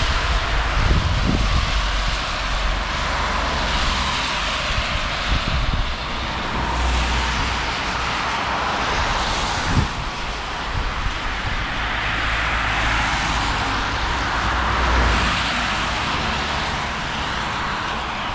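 Cars passing one after another on a wet road, their tyres hissing as each one swells up and fades away, over a low rumble.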